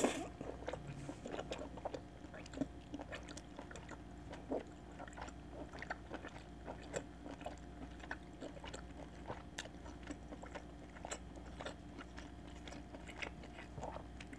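Close-miked mouth sounds of someone chewing a mouthful of chicken rice porridge: soft, wet little clicks and smacks scattered throughout, over a faint steady hum.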